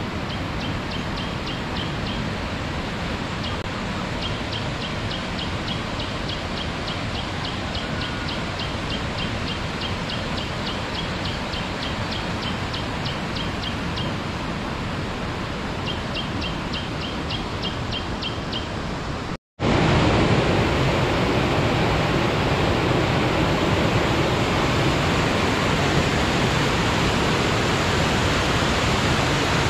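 Steady rushing water, with a rapid, evenly repeated high-pitched chirping call over it for most of the first two-thirds. After a brief dropout about two-thirds through, the water is louder.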